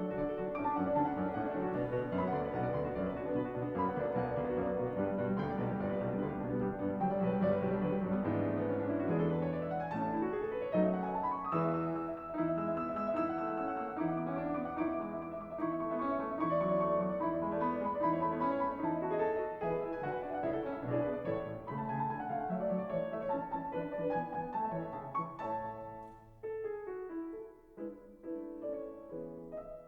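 Background piano music, with flowing runs and arpeggios, growing quieter and sparser near the end.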